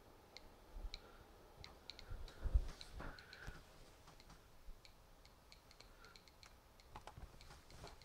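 Faint, sharp ticks at uneven spacing, sometimes several a second, with a few low handling thumps about two and a half seconds in as the camera is moved.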